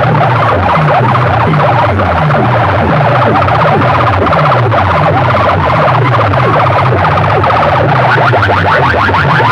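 Loud electronic siren-like sweeps blasted through a large competition sound system over a pulsing bass pattern: a DJ siren-effect track played at full volume.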